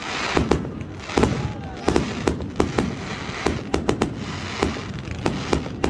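Fireworks going off in quick succession: a dozen or more sharp bangs and pops at irregular intervals, some close together, over a steady crackling din.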